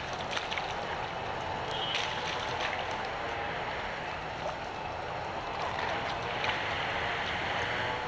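Macaques splashing and scampering through a shallow rainwater puddle, over a steady watery hiss, with a few short sharp splashes about two seconds in.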